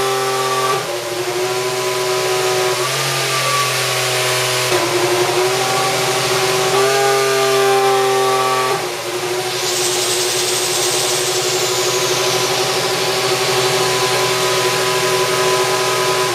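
Mercedes AMG W07 Hybrid Formula 1 car's 1.6-litre turbocharged V6 running at a steady idle on the stand, its pitch stepping slightly up and down every couple of seconds. About ten seconds in, a hiss joins it and slowly falls in pitch.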